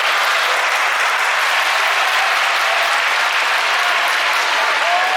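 Sumo arena crowd applauding steadily.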